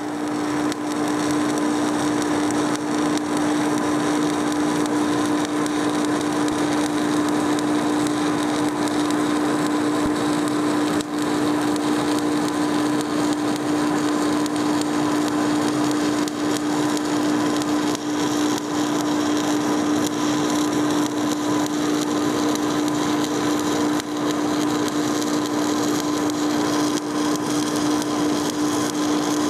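Stick welding arc crackling and sizzling steadily on steel angle, with the downdraft table's extraction fan running underneath as a steady hum.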